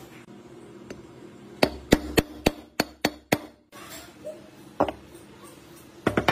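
Sharp metal knocks and taps as the chainsaw crankcase is worked on: a quick run of about seven taps, a single one a little later, then a few close together near the end, over a faint steady hum.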